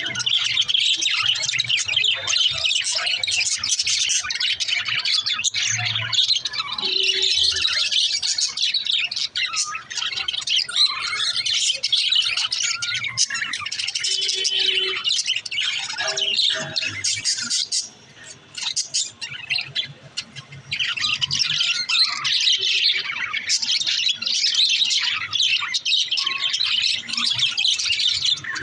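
A group of budgerigars chirping and chattering continuously, with rapid warbling calls and occasional squawks, briefly thinning out a little past the middle.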